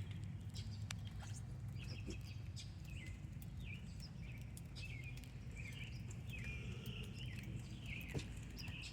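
Birds chirping: many short, high calls, some sliding down in pitch, scattered throughout over a steady low background rumble.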